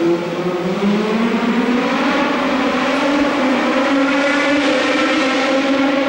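Hill-climb race car engine at high revs under full throttle: the note dips briefly in the first second, as at a gear change, then climbs steadily as the car accelerates.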